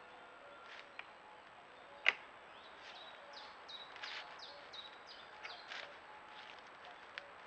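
Roe deer moving over dry leaf litter and twigs, with a sharp snap about two seconds in and a few lighter rustles and clicks. A small bird sings a short series of high notes, each sliding downward, in the middle.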